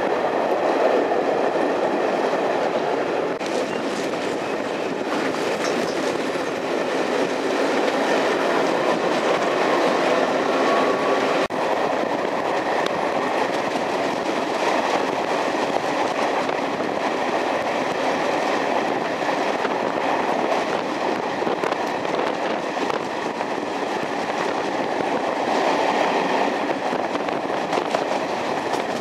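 Passenger train running along the track: a steady rolling noise of wheels on rail, with one sharp click about eleven seconds in.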